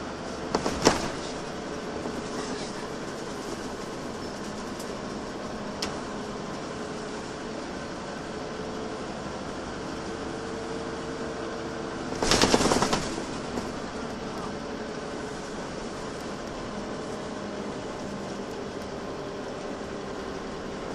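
Inside a moving Volvo B10BLE single-decker bus: the engine and drivetrain run steadily with a faint whine and cabin rattle. Two loud bursts of noise, each about a second long, come about a second in and about twelve seconds in.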